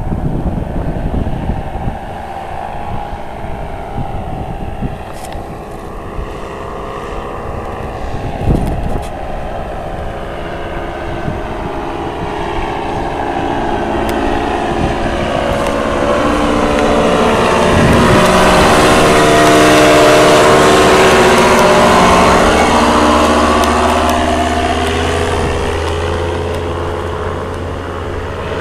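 Paramotor engine and propeller droning as the powered paraglider flies past, growing louder to its nearest pass about two-thirds of the way through, then easing off. Wind buffets the microphone in the first few seconds.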